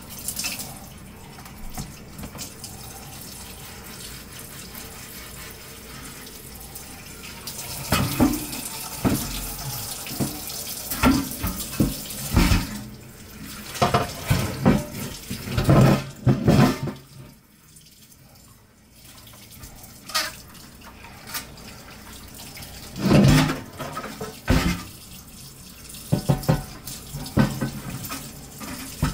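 Kitchen tap running into a sink, with repeated knocks and clatters of things being handled under the water. There is a short lull a little past the middle, then the water and clatter resume.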